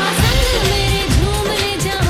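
Background music: a South Asian–style pop song with a singer over a heavy beat, the bass and drums coming in just after the start.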